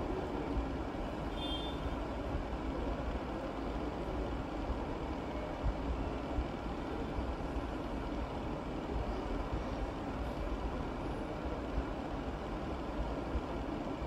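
A steady low mechanical rumble and hiss, with a few light taps of a chef's knife on a plastic cutting board as carrots are cut into sticks.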